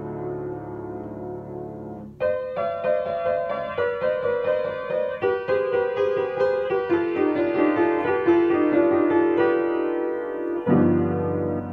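Upright acoustic piano played by hand: a held chord dies away, then about two seconds in a new phrase of quick, repeated treble notes begins without bass, and near the end a loud low chord comes back in.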